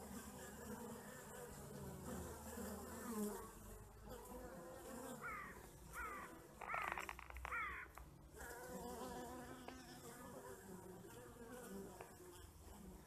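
Honey bees buzzing as they fly in and out of the hive entrance, a faint, wavering hum of several wingbeats at once. Midway, about four short rising-and-falling calls cut in over the buzzing.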